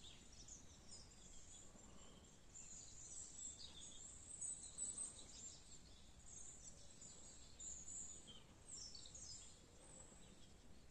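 Near silence with faint, scattered bird chirps, short high notes coming and going throughout.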